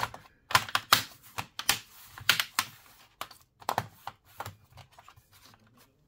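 Hands pressing down across an Asus X555L laptop's keyboard and top case to seat it: a run of irregular plastic clicks and taps, densest in the first few seconds and thinning out toward the end.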